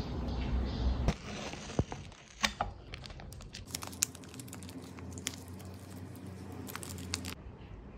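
Packaging crinkling and tearing as a cup noodle's lid is peeled back and its seasoning sachets are handled, a dense run of crackles that stops shortly before the end. It is preceded by a few sharp clicks in the first seconds.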